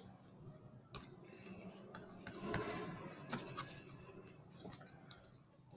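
A small spoon stirring sticky glue slime in a small pot: faint scraping with scattered small clicks of the spoon against the pot, a little louder around the middle.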